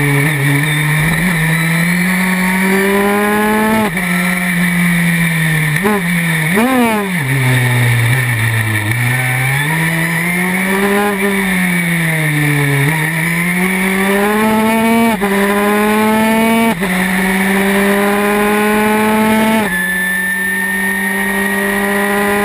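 Historic Formula 3 racing car's engine, heard onboard at racing speed: the pitch climbs under full throttle and drops back in steps at each upshift, with quick throttle blips on downshifts under braking, falling pitch into slow corners, then a run of upshifts near the end.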